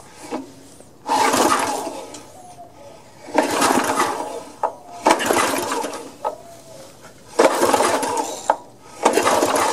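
Recoil starter of the compressor's Honda small engine pulled five times, each pull a rasping whir of rope and spinning engine about a second long, with sharp clicks between pulls. The spark plug is out for a spark test and no spark shows, so the engine only spins over without firing: a sign of a dead ignition coil or magneto.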